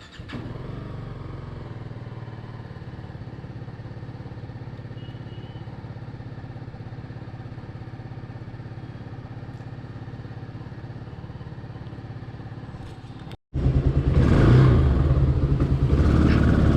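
Motorcycle engine idling steadily with an even pulse; after a short break about 13 seconds in, the engine is heard much louder.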